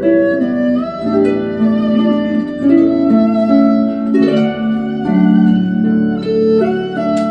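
Erhu and harp playing a slow piece together: the erhu's held, gently sliding bowed notes over the harp's plucked notes.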